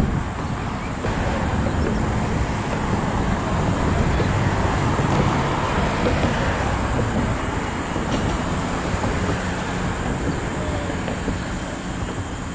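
A motor vehicle engine running with a low steady hum, under a continuous outdoor rumble and wind buffeting the microphone.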